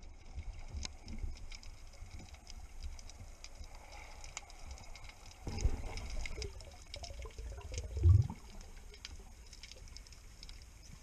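Underwater sound through an action camera's housing: a steady crackle of small clicks over a low rumble of moving water, with a dull knock about five and a half seconds in and a louder low thud about eight seconds in.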